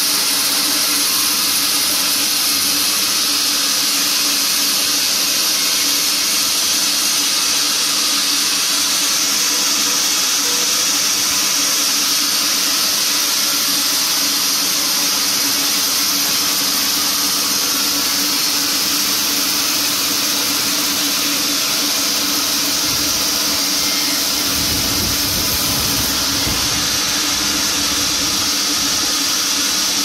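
Band sawmill cutting lengthwise through an old teak log: a steady high hiss of the band blade in the wood over the even hum of the saw. A deeper rumble joins in for a few seconds near the end.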